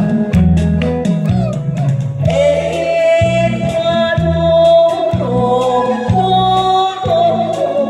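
A singer sings a trot song over a backing band track with a steady bass beat, holding a long wavering note from about two seconds in.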